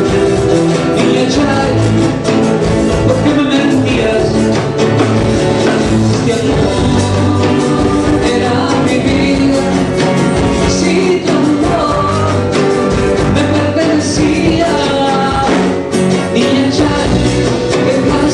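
Live song: a man sings into a microphone while playing a nylon-string acoustic guitar. A band backs him with bass and percussion on a steady beat.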